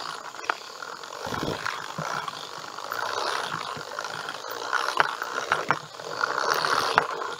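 Hand-cranked broadcast seed spreader whirring in spurts of about a second as its gears turn and fling seed, with a few sharp clicks and the rustle of walking through tall weeds.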